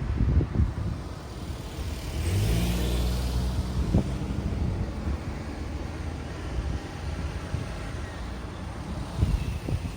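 A car passes, its engine rising in pitch as it accelerates about two seconds in, with tyre hiss, over gusty wind noise on the microphone.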